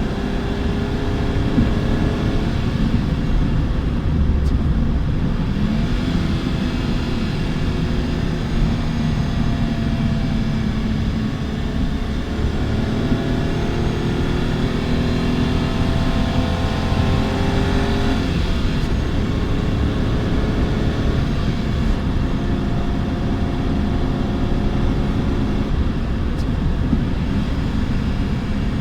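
Renault Twingo III engine running under way. Its pitch climbs steadily under acceleration for several seconds and drops abruptly about eighteen seconds in, as at a gear change or lift-off.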